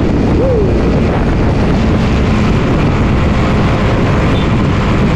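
Suzuki Raider 150 Fi motorcycle's single-cylinder engine running steadily while riding at road speed, mixed with wind noise on the microphone.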